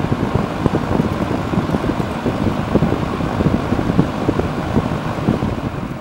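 1980s K-mart box fan running on high speed, its big steel blades pushing a steady rush of air that buffets the microphone; the sound begins to fade near the end.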